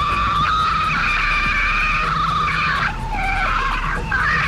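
A long, high-pitched squealing scream heard over a police radio recording, said to be the call of a Sasquatch. The shriek is held with a steady pitch, falters about three seconds in and picks up again, over a low electrical hum.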